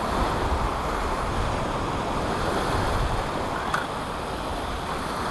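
Surf washing up the beach in a steady rush, with wind buffeting the microphone. A single sharp click sounds about two-thirds of the way through.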